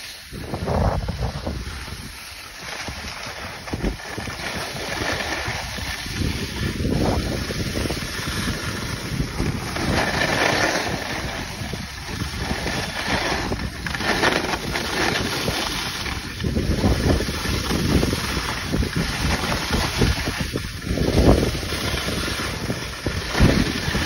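Wind rushing over the microphone of someone skiing downhill at speed, with the steady hiss and scrape of skis on hard-packed snow, swelling and easing with the turns.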